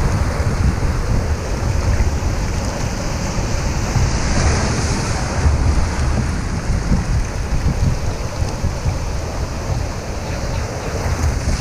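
Breaking surf and foaming whitewater washing around a kayak, with a steady low wind rumble on the microphone.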